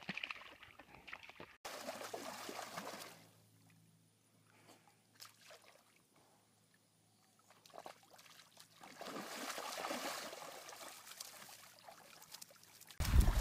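Muddy water sloshing and splashing as an animal rolls and wallows in a mud puddle, quieter in the middle and busier again in the last few seconds.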